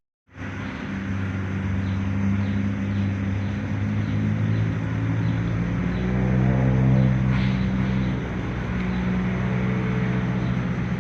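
An engine running steadily, its pitch shifting up slightly in the middle and then settling back.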